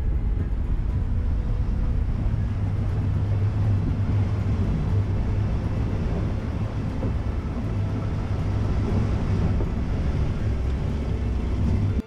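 Nissan X-Trail fording a shallow river: a steady, loud low rumble of the engine and tyres mixed with water rushing and splashing around the car, picked up by a camera mounted outside on the vehicle.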